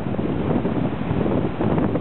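Wind buffeting the microphone steadily, over the rush of waves breaking in rough surf.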